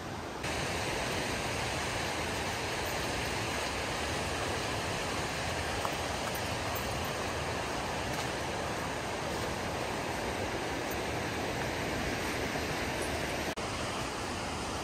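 Stillaguamish River flowing close by: a steady, even rush of water, stepping up slightly in level about half a second in.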